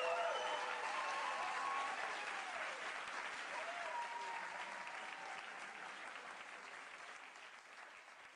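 Studio audience applauding, with a few voices calling out over it, fading out steadily to silence.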